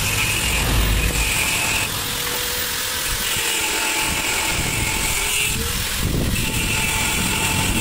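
Motorcycle engine running with a low rumble, which thins out for a few seconds mid-way and picks up again about six seconds in. A steady high whine cuts in and out over it.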